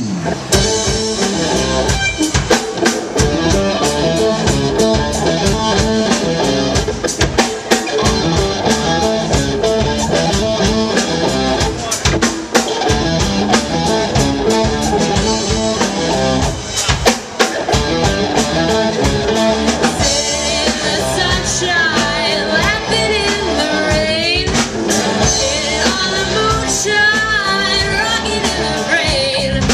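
Live rock band playing through a PA: electric guitars, bass and drum kit, with a woman's sung vocal coming in about twenty seconds in.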